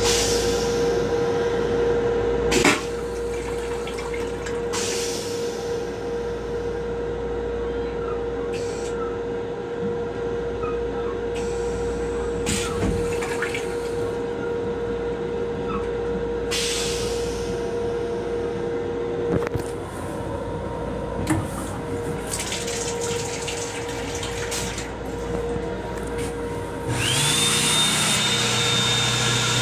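M7 railcar toilet flushing: rinse water streams and swirls into the stainless-steel bowl over a steady hum, with a sharp click about three seconds in. Near the end the sink faucet comes on and water runs into the basin.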